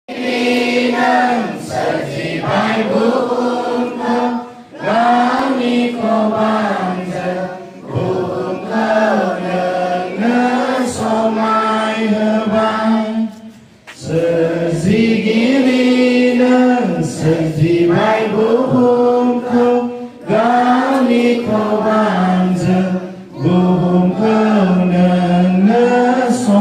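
A large crowd of schoolchildren singing together in unison, a slow prayer-like song in sung phrases with brief pauses between them and a longer pause about halfway through.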